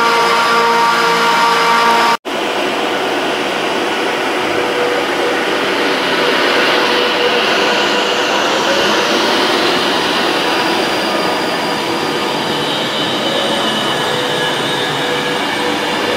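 An Avanti West Coast Class 390 Pendolino electric train moves along the platform with a steady rumble of wheels on rail and a hum from its electric traction equipment. For the first two seconds a Class 350 electric unit pulls away with a steady whine, which cuts off abruptly.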